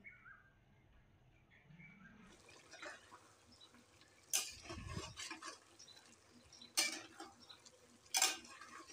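A metal spatula stirring a thick bottle gourd and shrimp curry in a metal pot: soft scraping with three sharp clinks of the spatula against the pot, about four, seven and eight seconds in.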